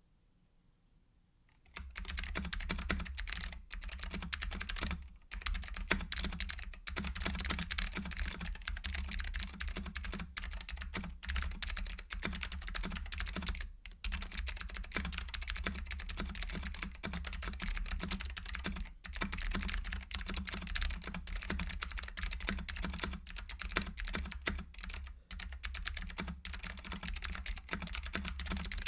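Fast, continuous, irregular clicking and tapping that starts about two seconds in, over a steady low hum.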